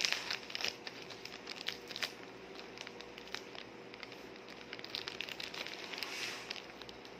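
Plastic courier bag crinkling and crackling as hands pull it open: a run of sharp crackles, busiest in the first two seconds, with a longer rustle about six seconds in.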